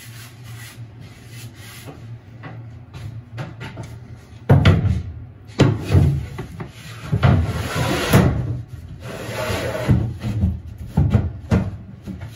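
Plywood panel being handled and test-fitted against a fibreglass boat hull: wooden knocks and scraping, quieter at first, then a run of loud, irregular knocks and rubs from about four and a half seconds in.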